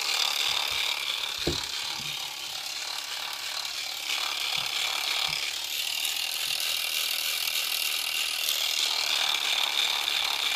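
Two small brushed DC motors coupled shaft to shaft, one driving the other as a generator, spinning fast with a steady high-pitched whir. A few light knocks come in the first half as the board is handled.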